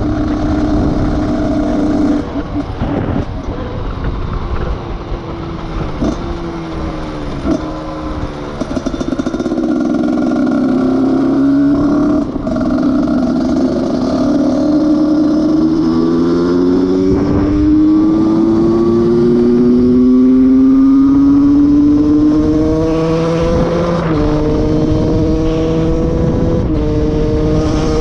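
Husqvarna SM 125 supermoto's single-cylinder engine running through a new handmade exhaust end can. The engine drops off a few times early on, then pulls with a long rising note and drops in pitch twice near the end as it shifts up a gear.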